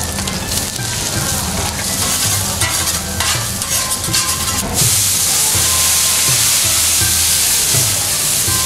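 Egg sizzling on a hot steel teppanyaki griddle, with metal spatulas scraping and tapping against the plate. About five seconds in, the sizzle becomes a louder, steady hiss.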